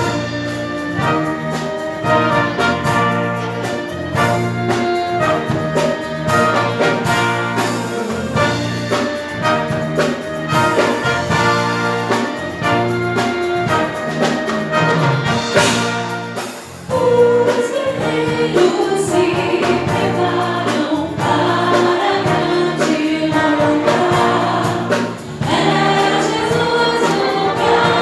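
Gospel band music: brass instruments playing sustained chords with a choir singing.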